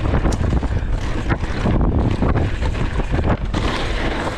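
Wind buffeting the camera microphone on a Polygon Xquareone DH9 downhill mountain bike as it runs fast down a dirt trail: a loud, steady low rumble with scattered knocks and rattles from the bike over bumps.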